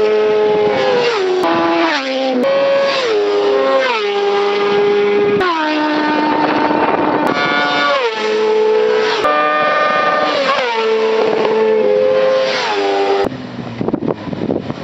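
Sportbikes passing at speed one after another, each engine's high-revving note dropping in pitch as it goes by. Near the end the engine note gives way to a quieter, rougher rumble.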